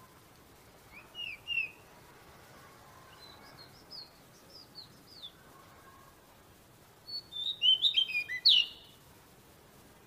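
Magpie-robin singing in short phrases of quick, sweet whistled notes. A run of falling notes comes in the middle, and a louder, rapid burst of notes comes near the end.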